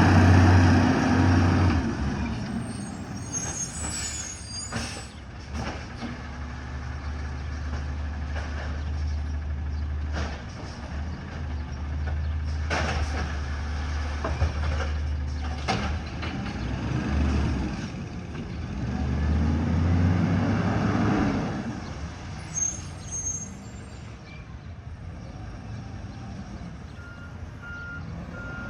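Heavy truck engine running steadily, with a series of sharp metallic clanks, a hiss of air about twenty seconds in, and reversing beeps starting near the end.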